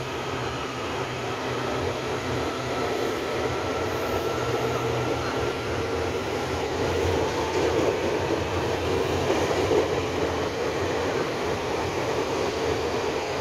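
Taiwan Railway EMU800-series electric multiple unit pulling out of the platform and gathering speed, its motors and wheels running as the cars pass close by. The sound grows louder towards the middle, with a faint whine that shifts in pitch.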